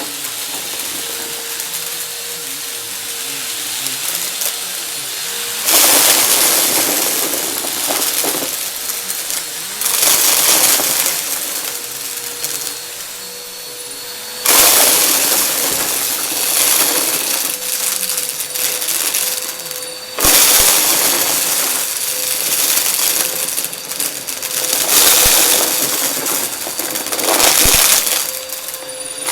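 Vacuum cleaner running with a steady whine, sucking up confetti: a dense crackling rattle surges up every few seconds as pieces go up the nozzle.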